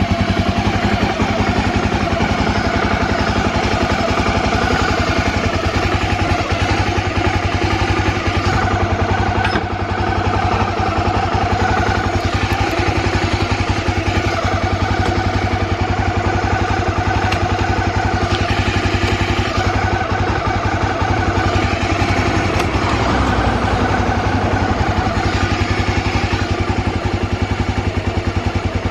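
Honda XL250 Degree's single-cylinder four-stroke engine running steadily, with no abnormal noise as the seller judges it.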